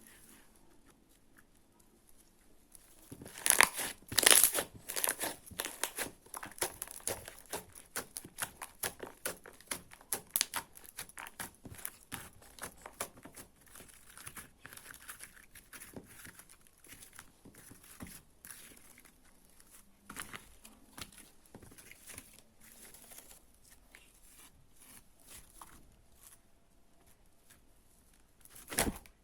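Homemade dish-detergent slime being worked: a dense run of sticky crackling and popping clicks that starts a few seconds in and is loudest early. The clicks then thin out to sparser pops, with a louder cluster near the end.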